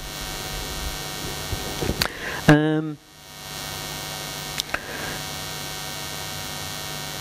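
Steady electrical mains hum in the audio system. It briefly drops out about three seconds in and fades back up. Just before the dropout a man gives one short vocal sound, and there are a couple of faint clicks.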